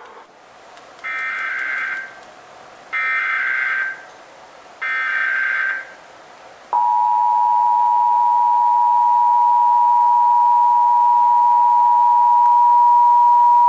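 Emergency Alert System test: the SAME digital header sent three times as harsh, buzzing data bursts about a second long with short gaps between them. After the third burst comes the EAS two-tone attention signal (853 and 960 Hz sounded together), a loud steady dual tone that holds past the end.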